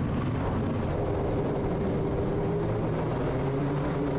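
Quest Kodiak's turboprop engine and propeller running with a steady drone as the aircraft rolls out on the runway just after touchdown.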